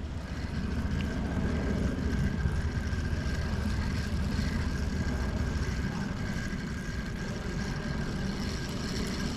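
A steady low engine rumble with a faint steady whine above it.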